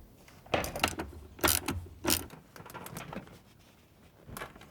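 A Hummer H3's rear seat section being unlatched and lifted out: a series of clunks, clicks and rattles of its metal frame and latches, the loudest about a second and a half and two seconds in.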